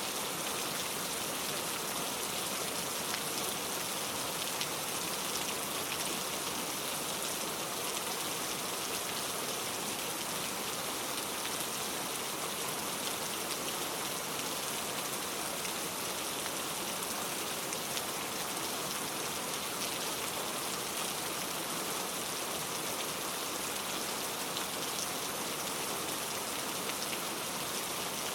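Steady rain falling: an even hiss dotted with countless small drop hits, unchanging throughout.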